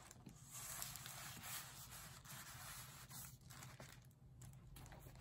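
Faint rustling and crinkling of a paper record inner sleeve with a plastic poly liner as it is opened and handled, easing off briefly about four seconds in.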